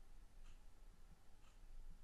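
Near silence: room tone, with a faint tick about once a second.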